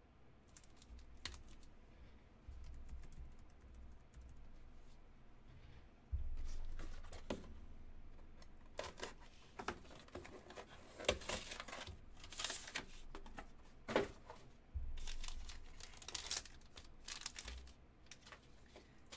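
Cardboard and hard plastic trading-card cases being handled on a tabletop: irregular rustling, scraping and sharp clicks, the loudest clicks about eleven and fourteen seconds in, with dull handling thumps underneath.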